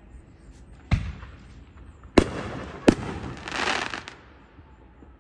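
Fireworks going off: a sharp bang about a second in, then two louder bangs about two-thirds of a second apart, followed by a short crackling hiss.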